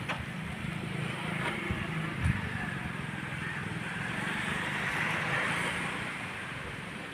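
Steady outdoor background noise, a low rumble and hiss that swells and fades around five seconds in, with a couple of faint knocks about two seconds in.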